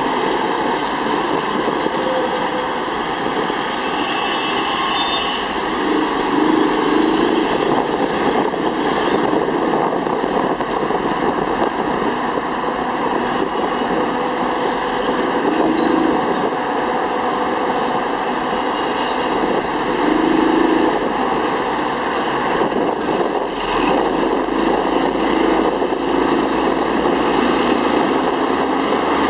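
Steady, loud road-traffic noise heard from an open three-wheeled motorcycle on the move: its engine running amid the rumble of buses and cars alongside.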